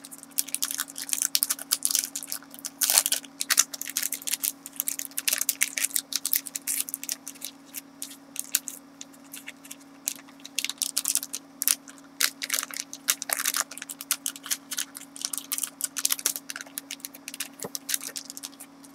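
Packaging of craft supplies crinkling and rustling as it is handled, a dense run of irregular crackles, over a steady low hum.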